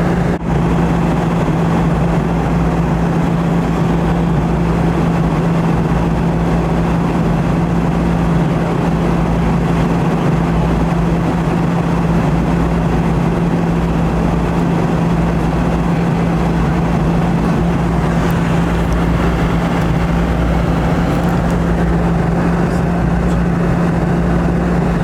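Steady jet cabin noise inside a Boeing 717: the rear-mounted Rolls-Royce BR715 turbofans and airflow give a constant rushing sound over a steady low hum, with a brief dip about half a second in.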